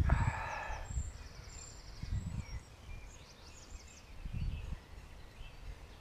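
Low rumbling buffets on the microphone come and go, loudest at the very start and again about two and four and a half seconds in, while small birds chirp and trill faintly in the background.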